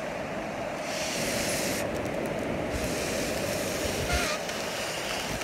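Breath blown into the valve of a foil letter balloon to inflate it: two long hissing blows, the first about a second in and the second from nearly three seconds in, over a steady background rush.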